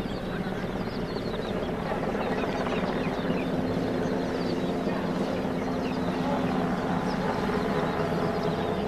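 Radio-controlled model aircraft's motor running steadily in flight, a continuous hum that grows a little louder about two seconds in.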